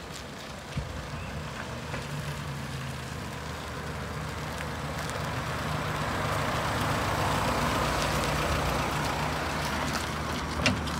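VW Amarok 2.0 BiTDI twin-turbo diesel pickup driving slowly, its engine running with a steady low hum while engine and tyre noise grow louder as it approaches, loudest about seven seconds in. A sharp click about a second in and another near the end.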